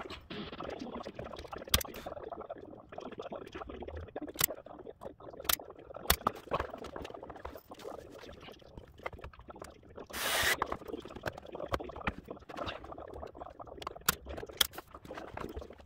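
Handling noise from fitting a snooker table pocket: scattered sharp clicks and taps of the metal pocket hoop and rods against the wooden rail, with a short scraping rustle about ten seconds in.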